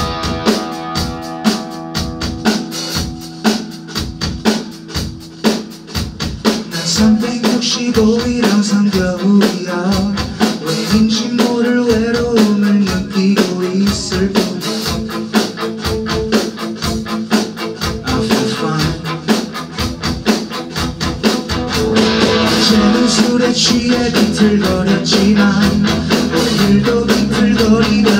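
Live rock band playing a calm song on electric guitars, bass and drum kit. A male voice sings from several seconds in, and the band gets fuller and louder about two-thirds of the way through.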